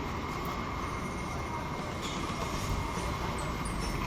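Toyota Yaris engine running at idle, a steady mechanical noise with a faint thin high tone over it.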